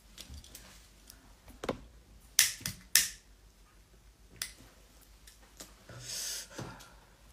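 A few sharp clicks of a lighter being struck to light a cigarette, then a soft breathy exhale of cigarette smoke lasting under a second about six seconds in.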